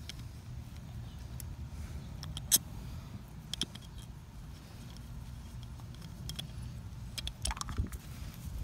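Small metallic clicks and clinks of screws and carburetor parts being handled as the bowl comes off a Kawasaki Ninja 250R carburetor, over a low steady rumble. There is a single sharp click about two and a half seconds in and a quick run of clinks near the end.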